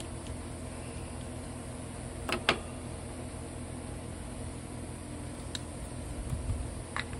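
A steady low mechanical hum, with a few sharp clicks of small tools and carburetor parts knocking on a stone surface. The loudest is a double click about two seconds in.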